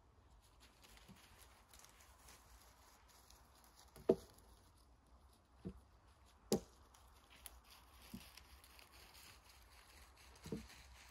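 Axe striking wood while firewood is chopped: about five dull, separate knocks at uneven intervals, the sharpest about four seconds in and another about six and a half seconds in.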